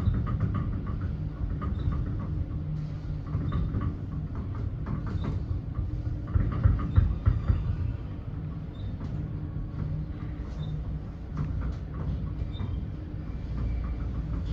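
Elevator car travelling down its shaft: a steady low rumble with light rattling and clicks, and a few louder knocks about halfway through.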